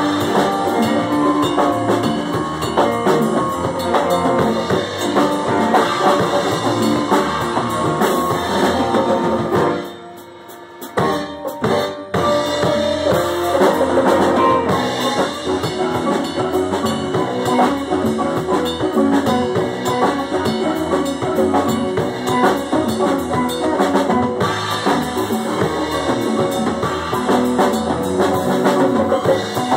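Pit band rehearsing on drum kit, electric bass and guitar, playing a steady up-tempo groove. About ten seconds in the band cuts out for about a second, comes back with a single hit, then picks up again.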